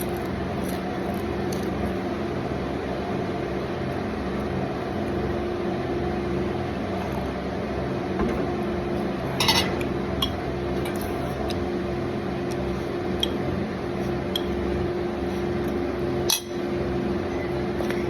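Spoon or fork clinking and scraping on a plate during a meal: scattered light clicks, with two louder clinks about halfway through and near the end, over a steady background hum.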